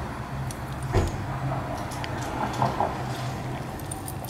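Small metal linkage parts of an SU carburetor clicking lightly as they are handled and fitted by hand, with one sharper knock about a second in, over a steady low hum.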